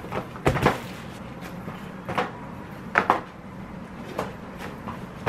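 A handful of separate knocks and thumps as feet in socks and slides step on and off the footpads of a Onewheel: a loud pair about half a second in, then single knocks about once a second.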